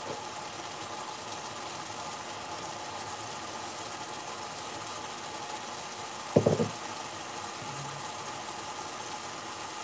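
Curry sauce with chunks of chicken sizzling and bubbling in a frying pan over a gas burner turned up to full, a steady hiss as the sauce reduces. A short low voice-like sound breaks in once, about six seconds in.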